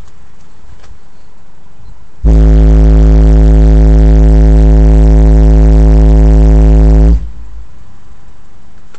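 A 12-inch Incriminator Audio 187 D4 car subwoofer plays one steady 53 Hz test tone in an SPL burp, and the meter reads about 139 dB. The tone starts sharply about two seconds in and cuts off about five seconds later. It is so loud that the recording clips into a harsh buzzing drone.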